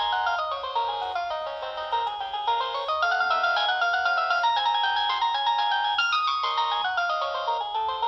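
Nokia 6070 mobile phone playing a polyphonic ringtone through its small loudspeaker: a fast melody of many short notes in several voices, stepping up and down in runs. It sounds thin, with almost no bass.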